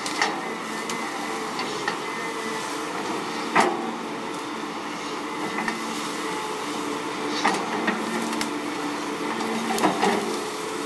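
Hydraulic excavator's engine running steadily as its bucket digs through soil and cassava plants. Sharp cracks of snapping stems and roots come several times, the loudest about three and a half seconds in.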